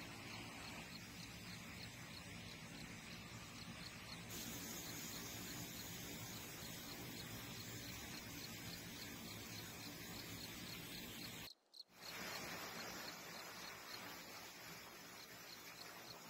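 Faint outdoor ambience: a steady hiss with an insect chirping in short, regular high notes. The sound drops out briefly just before twelve seconds in.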